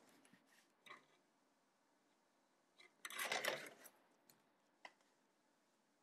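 Quiet handling of a plastic model-kit runner: a few faint clicks and one short rustle about three seconds in as the runner is moved.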